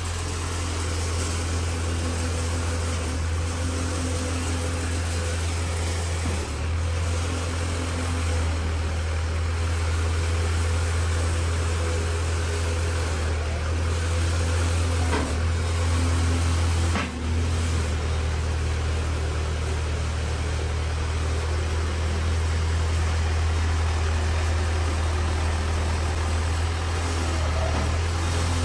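Diesel engine of a Hồng Hà 1.5 m³ self-loading concrete mixer running steadily with a low hum while it drives the hydraulic loader arm, which swings out and lifts its grab bucket. Two short knocks come about two seconds apart around the middle.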